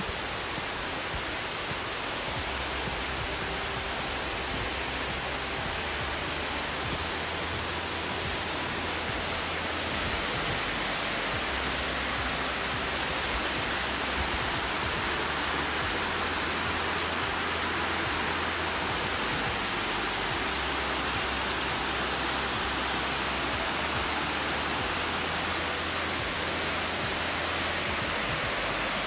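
Steady rushing roar of the Amicalola Falls waterfall, growing a little louder about ten seconds in.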